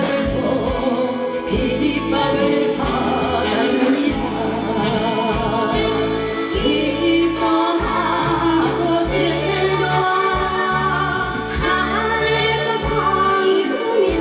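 Gospel song: singing with vibrato over an instrumental backing of steady bass notes and drum beats.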